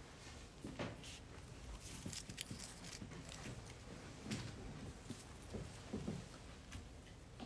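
Faint handling noises at a tabletop: scattered light taps, clicks and short rustles of small objects being moved about, a few a second with pauses between.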